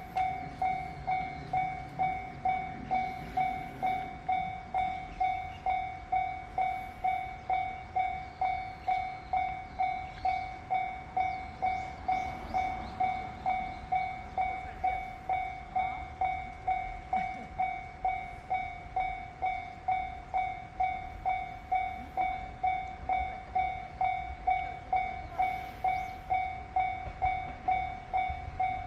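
Japanese railway level-crossing warning bell ringing in an even, repeating ding about one and a half times a second, the signal that a train is approaching the crossing.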